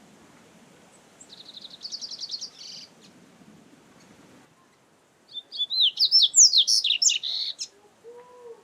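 Double-collared seedeater (coleiro) singing: a short, fast run of repeated high notes, then after a pause a louder, longer phrase of quick sliding whistles.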